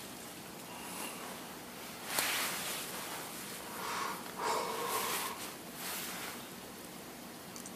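A person breathing through the nose close to the microphone: a few short, noisy puffs, the strongest about two seconds in and again around four to five seconds in.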